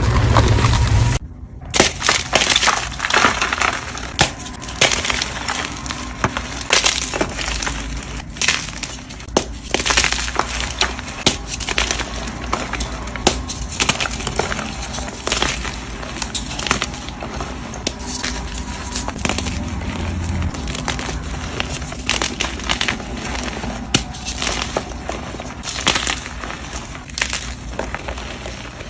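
Crunchy dyed gym chalk blocks being crushed: a dense, continuous run of dry crunches and sharp crackles, starting after a short break about a second in.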